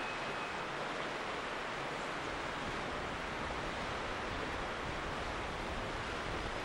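Steady, even rushing noise with nothing separate standing out.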